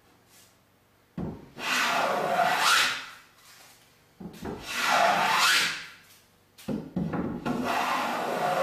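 An old Stanley hand plane taking three long passes along the edge of a board, each stroke a shaving hiss of wood lasting about two seconds. The last pass runs on past the end.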